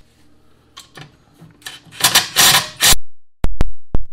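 Cordless impact driver on the centre bolt of a chipper shredder blade, fired in short bursts: one long burst of rattling hammering about two seconds in, then several quick trigger blips near the end.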